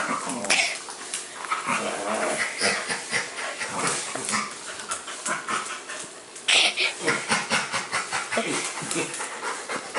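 Dog panting and snuffling rapidly during rough play-wrestling, with scuffling on a tile floor.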